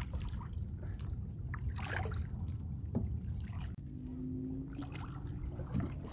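Kayak paddle blades dipping and splashing water in repeated strokes, about one every second and a half, over a steady low rumble. A faint steady hum comes in about two-thirds of the way through.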